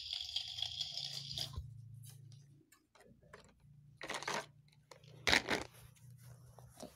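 Plastic play food and a toy frying pan clattering and knocking as they are handled, with a few sharp knocks, the loudest about five seconds in. A hiss at the start cuts off abruptly about one and a half seconds in.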